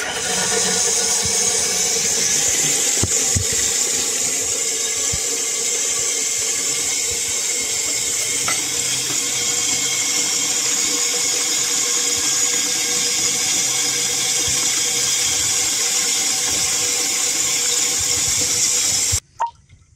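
A newly fitted brass ballcock (float valve) with a blue plastic float, running full bore as mains water rushes through it into the toilet cistern: a steady loud hiss with a faint steady tone in it. It stops abruptly near the end.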